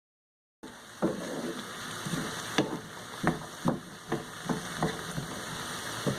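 Onions and peas frying in oil in a pan, sizzling steadily, while a utensil stirs them and knocks against the pan about eight times. The sound starts just after a moment of silence.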